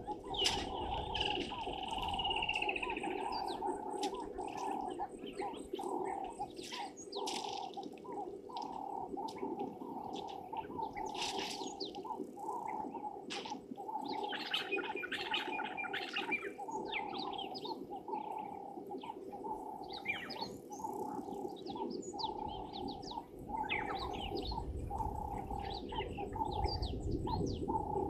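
Wild birds chirping and calling in short, varied bursts, over a continuous, evenly pulsing low chorus of repeated notes.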